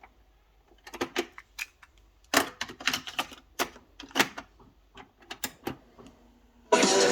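Irregular plastic clicks and clacks of an Aiwa CSD-FD73 boombox's buttons and mechanism being operated, then music starts playing loudly from the unit near the end.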